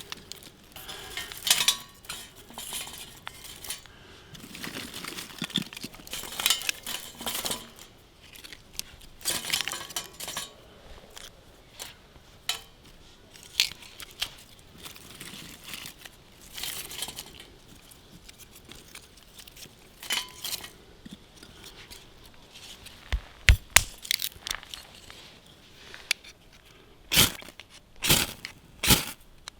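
Camping gear being handled: irregular crinkling, scraping and light clinks, with several heavier knocks over the last six seconds.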